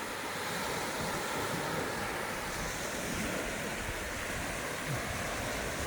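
Choppy lake waves breaking steadily on a rocky beach, a continuous rush of surf, with wind on the microphone.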